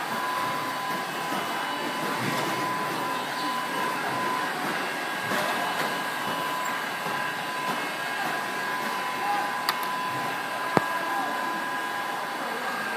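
Continuous gas-heated frying line running: a steady machine whir with thin, steady whining tones, and two sharp clicks about ten seconds in.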